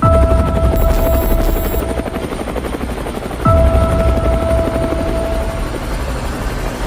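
Helicopter rotor chopping, used as a sound effect in a pop song's intro, with a held high tone over it that stops and comes back about three and a half seconds in.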